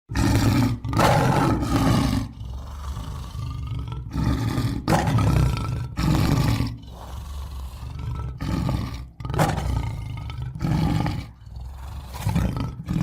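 Lion roaring: a series of about eight loud roars, with quieter growling between them.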